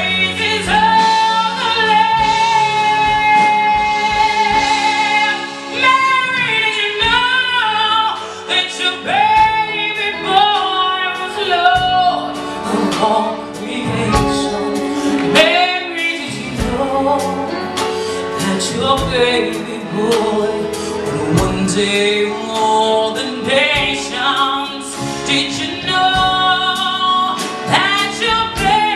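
A woman singing solo into a microphone with a live band of bass guitar, electric guitar and piano: she holds one long note with vibrato, then sings fast ornamented runs that swoop up and down.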